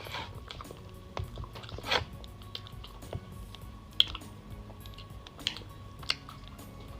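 A person biting and chewing food close to the microphone: soft wet chewing with about five sharp crunchy clicks spread through, over quiet background music.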